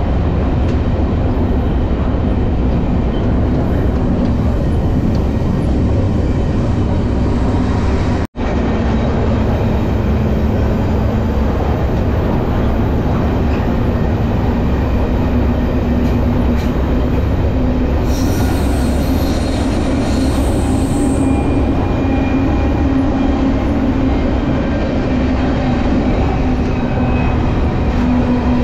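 Freight train rolling, a steady loud rumble and rattle of the cars and wheels on the rails, with a split-second dropout about eight seconds in.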